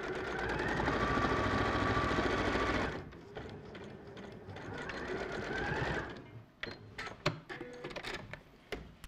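Electric sewing machine stitching a short seam: running fast for about three seconds, then slower and quieter, picking up speed again before stopping about six seconds in. A few sharp clicks follow as the fabric is handled.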